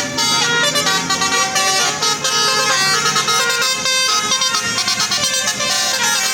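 Indonesian bus 'telolet' horn, a set of electrically switched air-horn trumpets, playing a tune of quickly changing notes.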